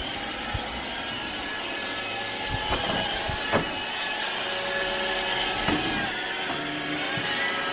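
Robot vacuum cleaner running with a steady whir of its motor and brushes, with a few light knocks between about two and a half and three and a half seconds in and again near six seconds.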